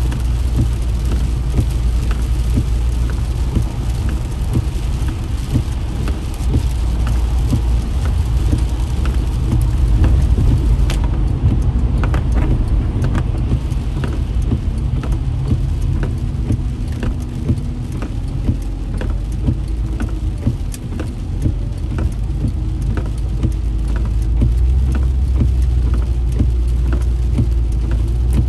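Inside a car driving on wet road in heavy rain: a steady low rumble of road and engine noise, with raindrops ticking irregularly on the windshield and roof.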